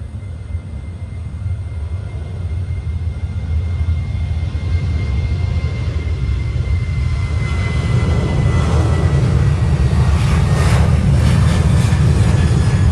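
Boeing 737 jet engines at take-off power, a deep rumble that grows steadily louder as the airliner accelerates down the runway. A thin whine sinks slightly and fades about halfway through, and the sound takes on a crackle in the last few seconds.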